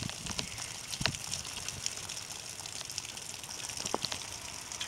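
Steady rain falling: an even, constant hiss, with a few sharp taps, the clearest about one second and four seconds in.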